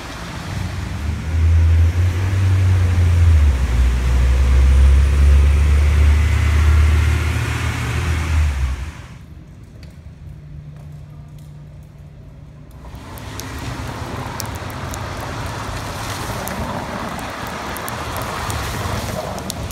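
Traffic on a wet street, with a vehicle's engine running loud and low as it passes, lasting about nine seconds and then cutting off abruptly. After a quieter few seconds, steady rain-like noise sets in on the wet pavement, with scattered sharp drip clicks.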